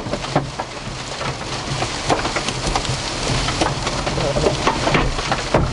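Hailstones pelting a truck's body and windshield hail guard, heard from inside the cab: a dense, constant clatter with frequent sharp hits.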